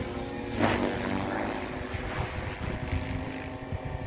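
An SAB Goblin electric radio-controlled helicopter in flight, its rotor and motor giving a steady pitched whine, with a louder whoosh of the blades about half a second in.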